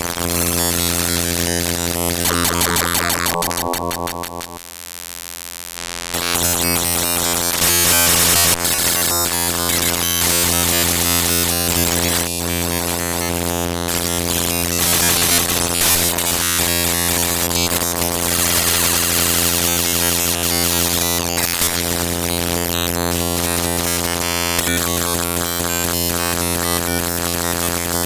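Harsh electronic synthesizer noise: dense hiss over a steady low buzzing drone. About four and a half seconds in, the drone drops out for about a second and a half, leaving only hiss, then the full noise returns.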